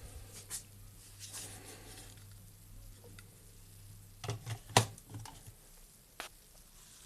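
A few sharp clicks and brief rustles, the loudest click a little under five seconds in, over a low steady hum that fades out around then.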